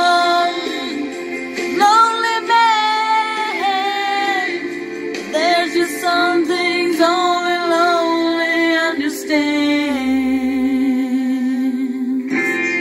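A woman singing a slow song along with backing music, holding long notes.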